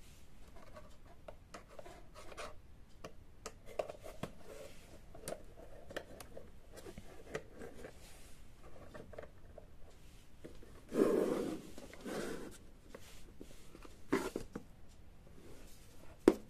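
Hands handling a small model garage diorama: fingers rubbing and tapping on its box with light clicks, a louder scraping rustle about eleven seconds in, and a sharp knock near the end.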